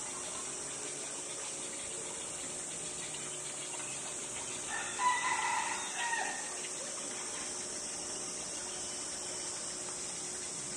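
A single pitched animal call about five seconds in, lasting about a second and a half, over a steady background hiss.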